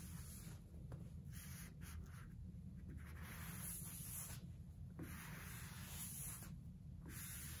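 Faint rubbing and swishing in repeated strokes: a plastic squeegee and a microfiber cloth working over wet touchscreen film on an iPad, pushing and wiping out the lens-cleaner liquid beneath it.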